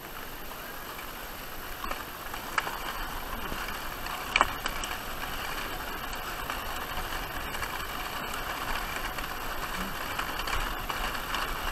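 A sledge sliding over packed snow: a steady scraping hiss that gets a little louder after about two seconds, with two sharp knocks in the first half.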